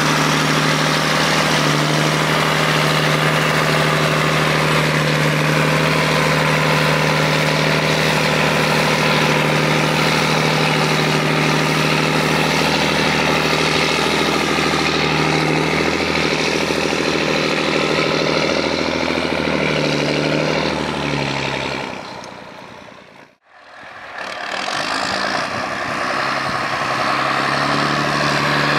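John Deere 8100 tractor's six-cylinder diesel engine running steadily under load while it pushes grass silage on a clamp. Its pitch shifts a little around the middle. About three quarters through, the sound fades out briefly and comes back in.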